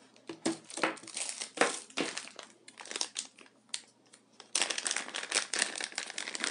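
Clear plastic packaging bag crinkling as it is handled and opened, in irregular crackles that turn dense and louder about four and a half seconds in.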